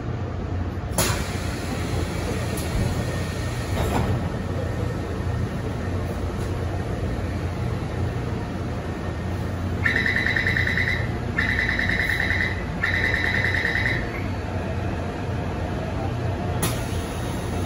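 Taipei Metro C301 car humming at a station, then the door-closing warning sounds three times, each tone a little over a second long. A sharp knock follows near the end.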